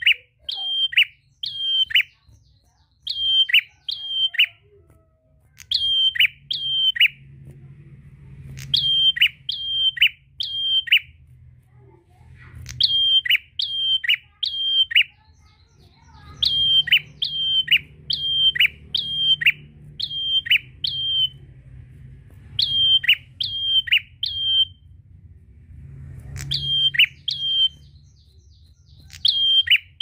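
Caged tailorbird (prenjak) calling loudly and persistently: sharp, downward-sliding notes in quick bursts of two to four, with short pauses between bursts.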